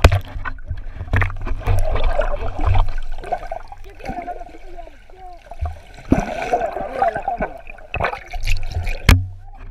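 Water sloshing and trickling, with a low rumble and a few sharp knocks, the loudest about nine seconds in.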